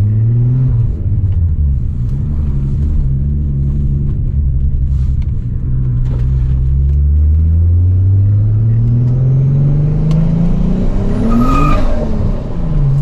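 Turbocharged VW VR6 engine pulling under load, its note climbing steadily after a brief dip about a second in. Near the end there is a short high-pitched rush, then the note drops.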